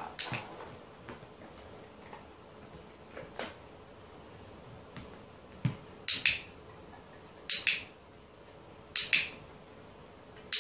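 Dog-training clicker clicking: a sharp click just after the start and a fainter one a few seconds later, then three quick double clicks about a second and a half apart, marking the dog for holding its stand on the balance discs.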